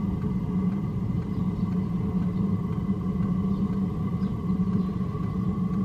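A steady low machine hum with a faint high whine above it, running evenly without change.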